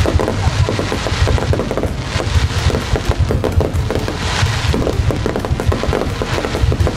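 A fireworks display going off in a rapid, continuous volley of bangs and crackles, with music underneath.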